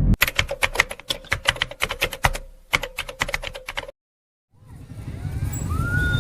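A rapid, irregular series of sharp clicks, like typing, for about four seconds. Then a brief silence, and a steady wash of outdoor noise fades in and grows louder near the end.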